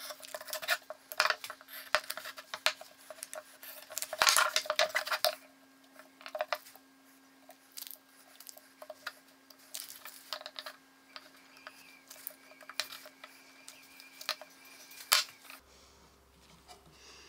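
Masking tape being pulled off the roll and cut with a utility knife on wooden workpieces, with the wood handled on the bench: scattered clicks and scrapes, and a longer ripping stretch about four seconds in. A faint steady hum underneath stops near the end.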